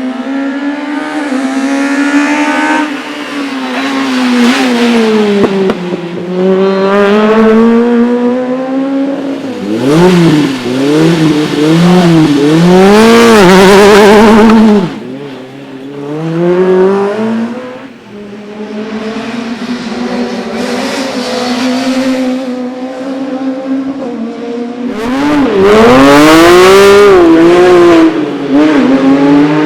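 Fiat Punto rally kit car engine revving hard, its pitch climbing and dropping again and again through gear changes and lifts off the throttle. It is at its loudest on full-throttle runs near the middle and again near the end, with a short drop in level between them.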